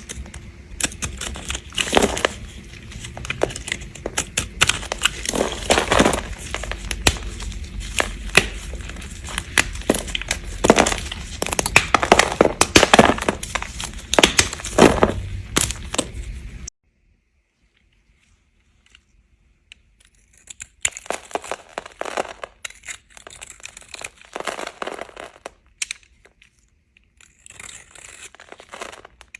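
Knife cutting through dry bar soap: a dense run of crunchy, crackling strokes that stops abruptly a little past halfway. After a couple of seconds of silence, quieter and sparser crunchy cuts resume.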